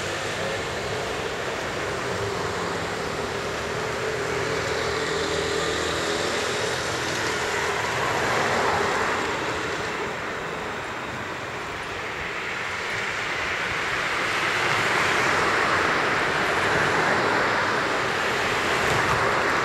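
Vehicle noise: a steady rush that swells toward the end, with a low hum fading out in the first few seconds.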